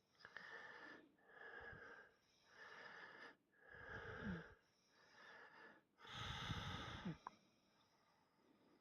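Cat snoring: a run of about six raspy breaths, roughly one a second, the last one the loudest, then fading to quieter breathing near the end.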